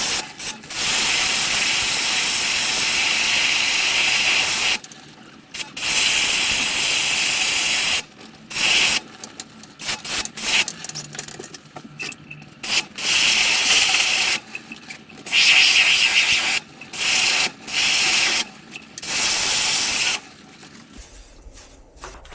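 High-pressure cleaning spray hissing in repeated bursts of one to five seconds, switched on and off many times, as during washing of an air conditioner's blower fan and evaporator coil.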